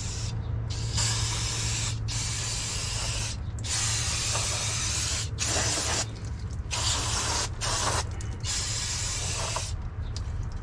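Aerosol brake cleaner spraying onto a truck's drum brake backing plate in a series of bursts, about seven, each up to a second or so long with short breaks between, stopping near the end.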